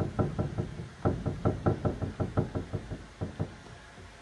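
Rapid dabbing against a painted cupboard panel while lifting wet chalk paint, about six soft knocks a second, stopping about three and a half seconds in.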